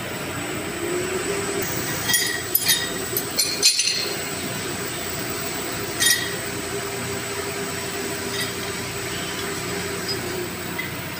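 Pipe wrench clinking against the steel pipe fittings of a diesel fire-pump engine's cooling line as a nipple is turned: a quick cluster of sharp metallic clinks two to four seconds in, another about six seconds in and a fainter one later, over a steady machinery-room hum.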